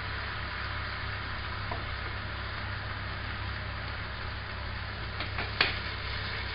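Chicken strips with peppers and onion sizzling in a hot frying pan just after a splash of water was added: a steady hiss over a low hum, with a few light clicks about five seconds in.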